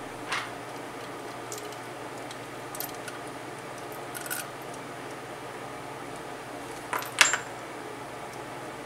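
Small metal valvetrain parts (springs, retainers, compressor) clinking as they are handled on a cylinder head: a few light clinks, with the loudest pair about seven seconds in.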